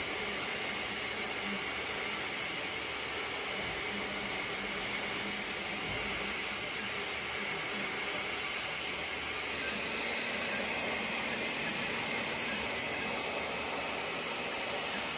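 Large-format FDM 3D printer (Elegoo OrangeStorm Giga) running mid-print: a steady whoosh from its toolhead cooling fans, with faint motor tones from the moving toolhead.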